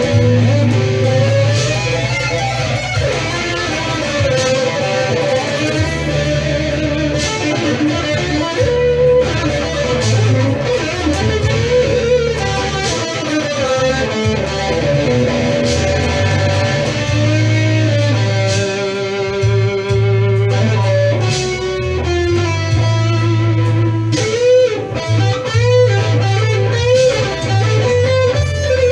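Electric guitar playing a blues lead, single-note lines with notes bent up and down, over a steady bass line.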